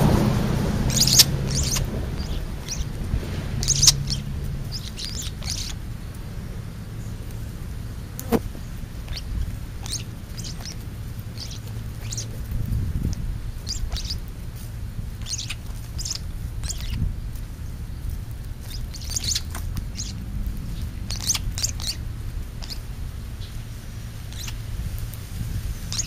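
European starlings feeding at close range, giving short chirps and clicks scattered irregularly throughout, over a low steady rumble.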